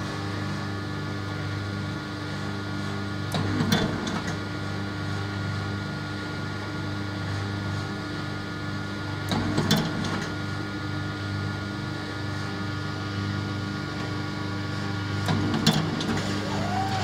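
Starpizza Ballmatic dough divider-rounder running with a steady motor hum. A louder working stroke of the dividing cycle comes about every six seconds, three times, as dough portions are cut and dropped into the rounding bowl.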